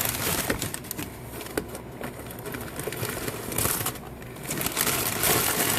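Shipping packaging being handled and opened, with rustling and many small irregular clicks and crinkles. It grows louder about five seconds in.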